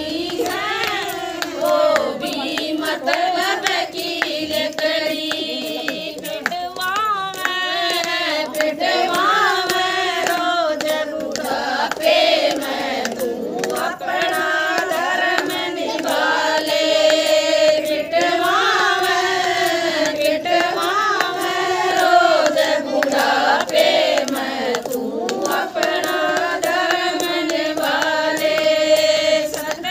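Group of women singing a Haryanvi bhajan together, keeping time with hand claps.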